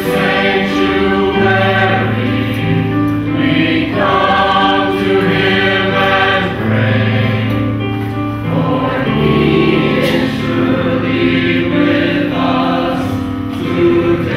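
Background music: a choir singing in long held chords that change every second or two.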